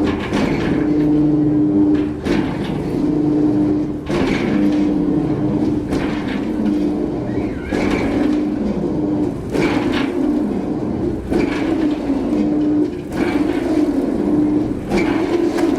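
A large swinging bell ringing, its clapper striking about once every two seconds. Its tone sounds on between strikes.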